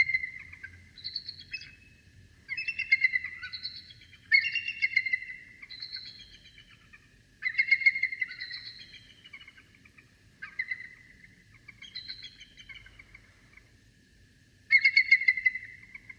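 Repeated bouts of rapid, pulsed, high calls from a night animal, about eight bursts of a second or two each, some notes sliding downward. A faint steady high tone runs beneath them.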